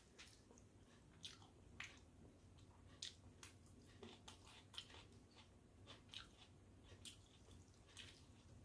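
Faint, wet eating sounds of a person eating panta bhat (water-soaked rice) by hand: irregular soft clicks, smacks and squishes of chewing, a couple each second.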